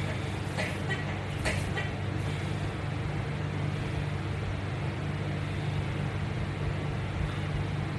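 Steady low hum, with a few faint short clicks in the first two seconds.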